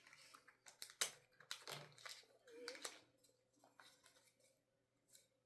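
Faint handling sounds of a phone box and its packaging: a few sharp clicks and brief rustling.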